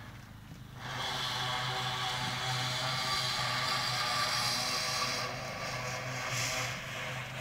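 A motor running steadily, coming on sharply about a second in, with a low hum and a hiss on top.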